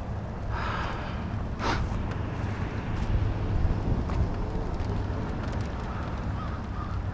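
American crows cawing a few times, with a single knock about a second and a half in, over a steady low rumble.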